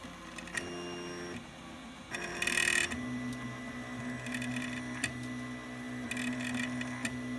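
Stepper motors of a homemade CD-ROM-drive 3D printer whining as they drive the hot end and bed during a print, the pitch changing with each move. There is a louder, buzzier stretch at about two seconds and a single click near five seconds.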